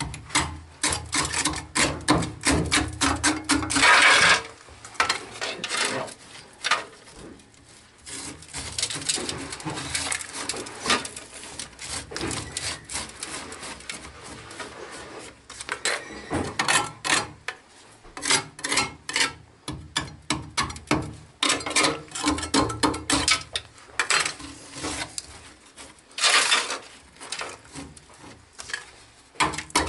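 A metal scraper scraping and chipping crumbling old sealant and rust off the joint of a cracked cast-iron sewer pipe, in bursts of short strokes with pauses between them, loudest about four seconds in. The joint is being cleaned down before it is re-sealed with cement.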